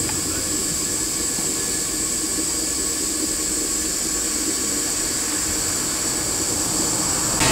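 Small steam tank locomotive standing with steam up, giving off a steady hiss of escaping steam.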